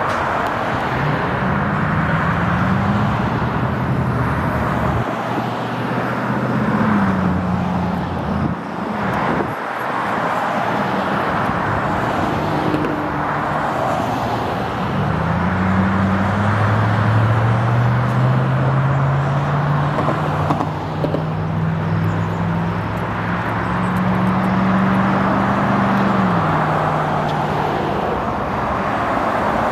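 Freeway traffic: a steady rush of tyres on the road surface, with the low engine hum of passing vehicles rising and falling in pitch. The longest hum lasts from about halfway through to near the end.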